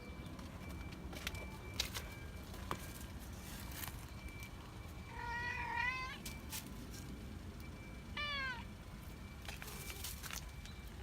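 A cat meowing twice: one longer call about five seconds in, then a shorter call that falls in pitch about three seconds later. Faint clicks sound here and there in between.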